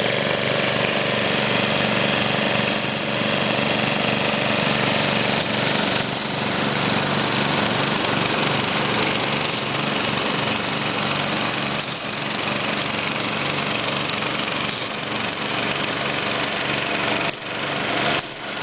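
Honda GX-series small engine running steadily on propane, driving the pump of a 4-inch gold dredge.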